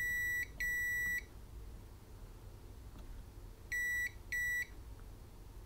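Digital multimeter's continuity tester beeping as the probes touch parts on a circuit board during a check for shorts. It gives a steady high tone in four beeps: one ending about half a second in, a second of about half a second, then two short beeps around four seconds in.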